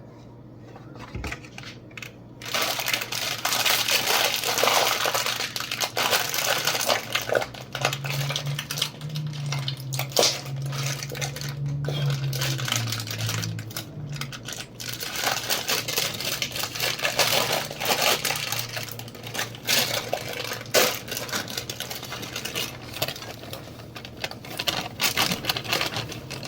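Continuous rustling, scraping and clattering of kitchen items being handled during brownie-mix prep, starting about two seconds in, with a low steady hum underneath.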